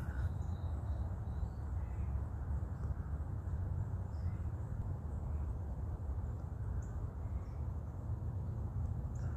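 Outdoor ambience: a steady low rumble, with a few faint, short high bird chirps scattered through it.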